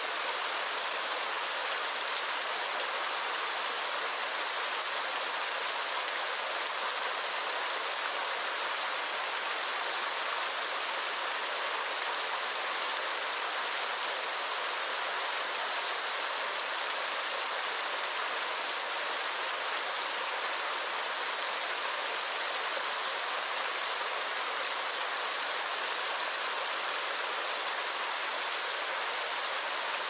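Small waterfall pouring into a shallow rocky pool: a steady, bright rush of falling water with no deep rumble.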